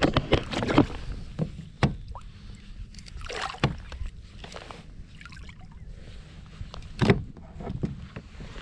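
Knocks and taps of handling on a plastic kayak, then water splashing about three seconds in as a fish is released over the side, and a sharp knock near the end.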